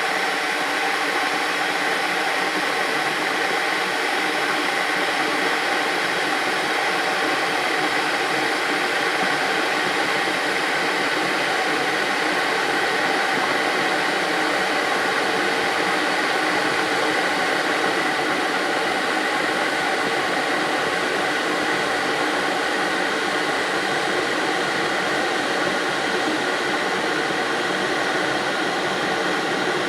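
Electric kettle boiling water: a steady rushing hiss with no breaks.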